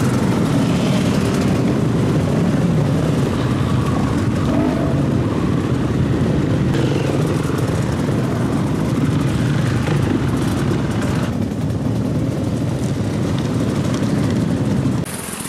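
A pack of enduro dirt bikes riding past at low speed, many engines running together in a steady, loud, dense exhaust noise.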